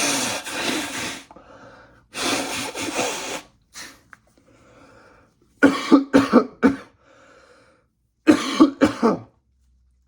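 A person coughing: two long, noisy blows of breath near the start, then two quick runs of three or four short coughs.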